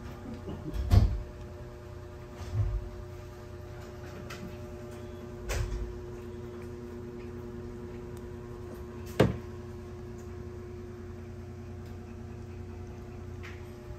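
A steady low hum with a few dull thumps, the loudest about a second in, and a sharp click about nine seconds in.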